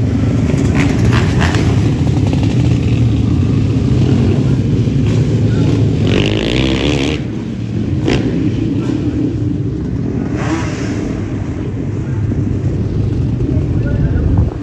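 Motor engine running steadily, with heavy low rumble and a few short knocks.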